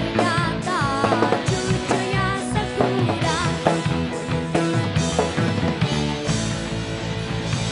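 Rock band playing live: drum kit, electric guitar and bass guitar.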